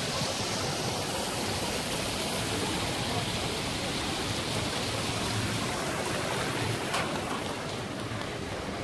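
Splashing of a row of small ground-level fountain jets spurting up from paving and falling back, a steady watery hiss that eases off over the last few seconds.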